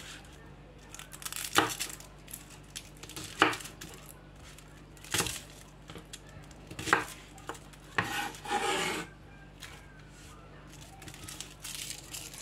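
Kitchen knife knocking on a plastic cutting board while shallots are trimmed and peeled: five sharp knocks about every two seconds. Just after the last knock comes a longer scraping rub, the knife or the papery shallot skins against the board.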